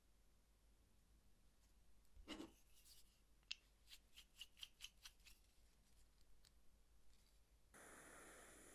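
A run of small sharp metal clicks and taps as a brass embossing stamp is handled and screwed onto its wooden-handled holder. Near the end a steady hiss starts: a pen-style butane heater running as the stamp is held over it to heat.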